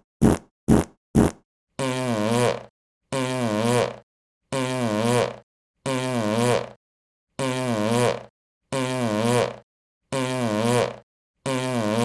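Fart sound effects: three short, quick puffs, then the same longer fart repeated about eight times. Each one lasts just under a second, with a low pitch that flutters and wavers, and they come about one every second and a half.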